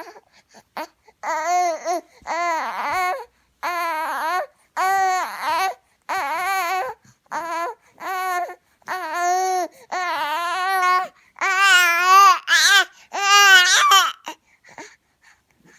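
A baby making a long run of drawn-out vocal noises with a warbling, wavering pitch, about a dozen in a row with short pauses between them; the last few are the loudest.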